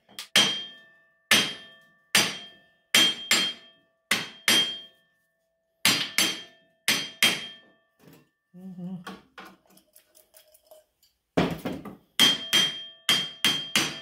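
Hammer blows on the steel wheel hub of a Yamaha Tri-Moto's rear axle, driving the hub off the splined axle shaft, each strike ringing like struck steel. About a dozen spaced blows, a pause of a few seconds midway, then a quicker run of blows at about three a second near the end.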